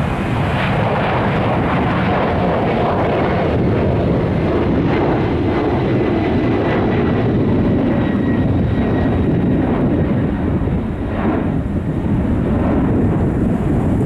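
Boeing 767-300ER twin-engine jet airliner climbing out at takeoff thrust: a loud, steady jet rumble with crackle and a faint whine that sags slightly in pitch.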